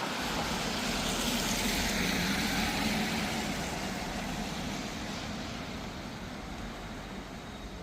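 A vehicle passing on a wet street, its broad rushing noise swelling to a peak about two to three seconds in and then slowly fading.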